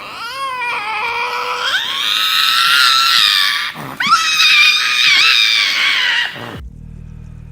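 Lynx wailing: two long, high, moaning calls, each rising at the start and then held, with a short break between them. Near the end the calls cut off, leaving a faint low hum.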